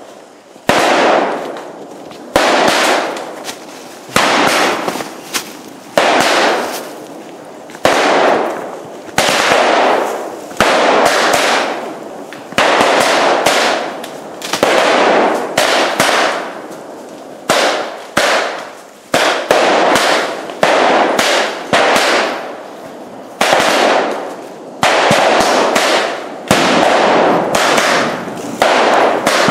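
Firecrackers going off one after another, about one sharp bang a second, each echoing and dying away before the next.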